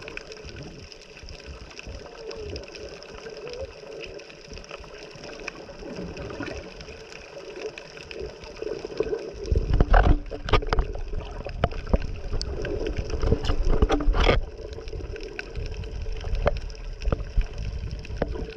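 Underwater sound heard through a camera housing: muffled water movement and gurgling with a faint steady hum. From about nine seconds in, a louder low rumbling sets in, with a cluster of sharp knocks and splashes for about five seconds.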